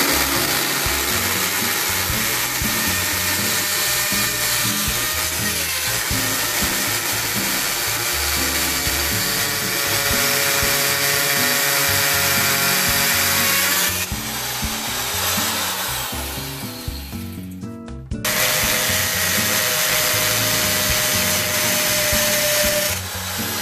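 Corded hammer drill boring into brick, running hard with a steady motor whine for about fourteen seconds, easing off, then stopping briefly and starting again for about five more seconds.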